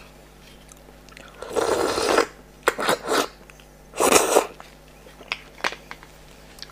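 Close-miked slurping and sucking from a raw marinated crab's shell: two long wet slurps, about a second and a half in and about four seconds in, with short sharp mouth smacks and clicks between and after them.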